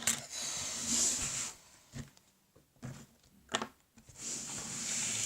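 Homemade glue slime being squished and stretched in the hands: two stretches of soft, hissy crackling, each over a second long, with a few short clicks between them.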